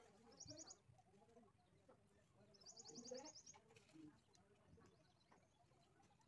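Near silence with faint birdsong in the background: short high rapid trills about half a second in and again around three seconds in.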